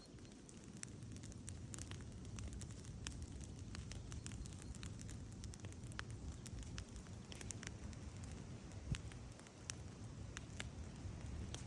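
Open fire crackling, with irregular sharp pops and snaps over a steady low rumble.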